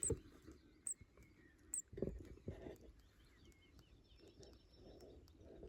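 Small birds chirping faintly, short high calls every second or so, with a couple of low rustling bumps about two seconds in.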